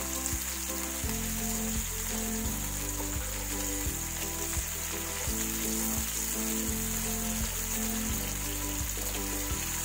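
Onion-tomato masala with a splash of water sizzling in oil in a non-stick pan as a spatula stirs it through, the bhuna stage of frying it down. Soft background music of held notes runs under the sizzle.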